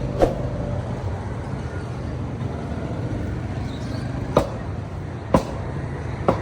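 Four sharp chops at uneven intervals, a butcher's cleaver striking beef on a chopping block, over a steady background of traffic noise.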